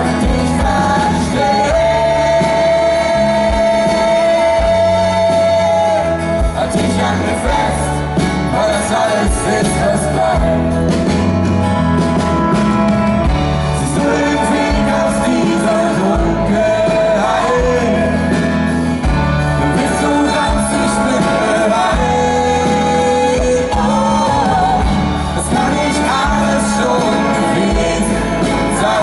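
Live pop-rock band music with long held sung notes, played in a large arena.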